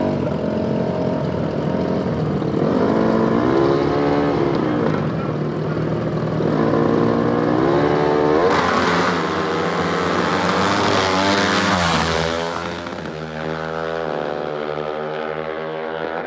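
Dirt bike engines revving hard on the street, the pitch climbing and dropping again and again as they rev and shift. A bike passes close by with a loud rush about halfway through, and the engine note climbs through the gears several more times near the end.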